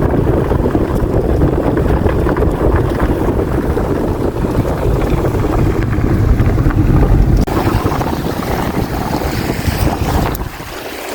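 Strong wind buffeting the microphone, a loud, rumbling noise that gusts unevenly, over waves washing on the lake shore. The wind eases briefly near the end.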